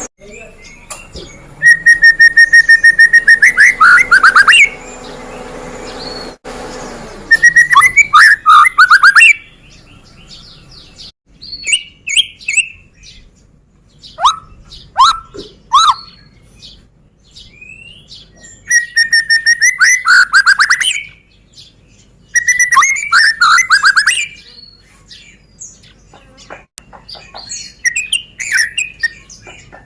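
White-rumped shama (murai batu, Medan type) singing in loud phrases of one to three seconds separated by short pauses: rapid trills and sweeping whistled notes, some phrases opening on a held whistle that breaks into fast repeated notes. A faint steady hum sits under the first few seconds.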